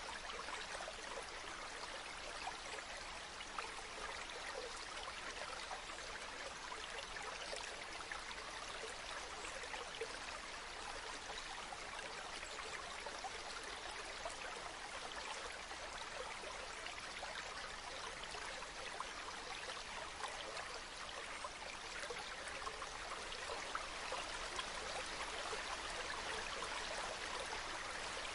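A waterfall's water falling and splashing in a steady, unbroken rush, full of small, close splashes.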